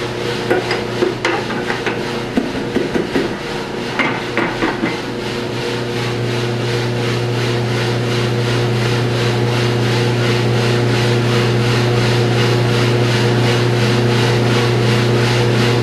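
Drum coffee roaster running mid-roast: a steady motor and fan hum, with beans tumbling and rattling in the rotating drum. During the first five seconds there are sharp knocks and clicks as the sample trier is worked.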